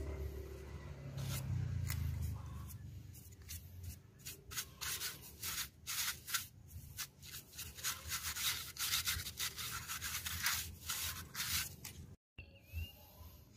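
A stiff brush scrubbing dirt off an old TV loudspeaker's cone and plastic frame in quick, repeated scratchy strokes, after a few seconds of duller handling rumble.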